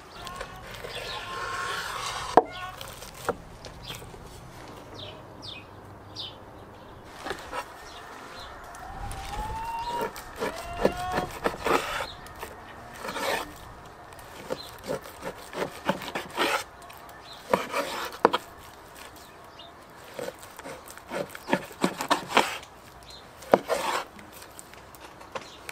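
Big kitchen knife slicing through raw pork and knocking on a wooden cutting board, in a run of short scrapes and taps. A few short rising calls sound faintly in the background about ten seconds in.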